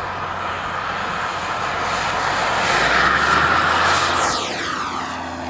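Swiwin 80 turbine of a model T-33 jet running at high power as the jet rolls down the runway toward and past the listener. The rush of jet noise builds to its loudest a little past halfway, then a high whine falls steadily in pitch as it goes by.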